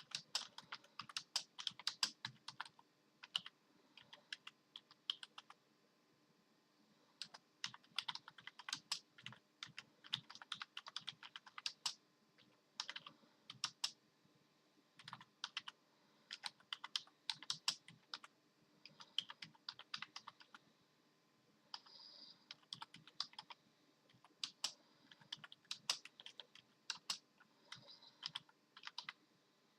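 Computer keyboard keys clacking in irregular bursts of rapid key presses, with short pauses between the bursts.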